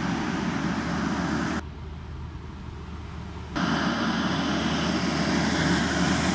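Express train passing close by: a loud, steady rush with a low rumble. It drops abruptly about one and a half seconds in and comes back just as abruptly about two seconds later.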